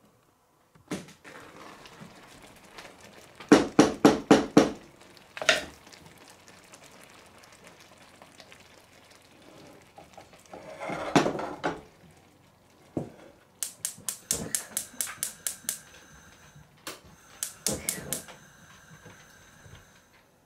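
Cookware and utensils being handled in a kitchen: a run of about five quick, loud knocks, a longer rasp, then quick runs of lighter, sharper clicks.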